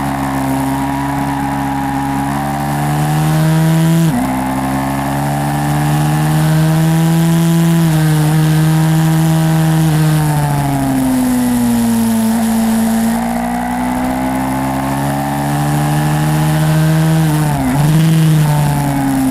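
YCF 150 SM pit bike's small single-cylinder four-stroke engine running hard, its pitch rising and falling with the throttle. There are brief sharp drops in pitch about four seconds in and again near the end.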